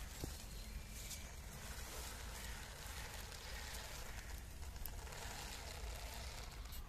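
A small 3D-printed RC crawler truck's electric motor and gear drivetrain whirring faintly as it crawls over leafy dirt, over a steady low rumble.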